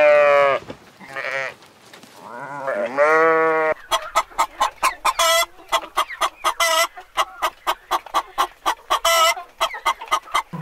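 Sheep bleating, two long wavering bleats. Then, a little under four seconds in, chickens clucking in a rapid run of short clucks.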